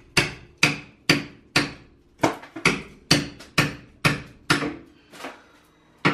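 Hammer and chisel chipping out the mortar that holds a door frame in the wall: steady blows about two a second, each with a short metallic ring, pausing briefly before a last blow near the end.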